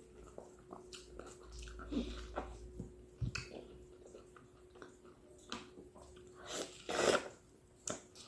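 Close-up eating sounds of a person biting and chewing soft, juicy fruit: irregular wet smacks and clicks, with one louder, longer wet burst about seven seconds in.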